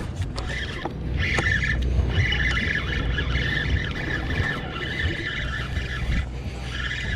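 Charter fishing boat's engine running at a steady low hum, with a higher wavering whine over it.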